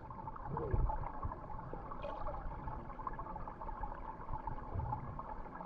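Steady rush of a waterfall and its stream pouring into a jungle pool.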